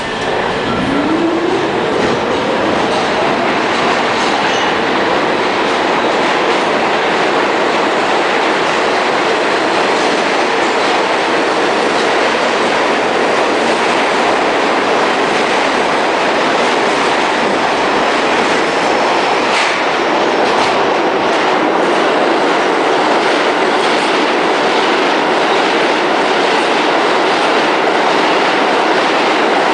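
New York City Subway train running through the station, its wheels clattering over the rail joints in a loud, continuous run. A rising whine sounds in the first couple of seconds.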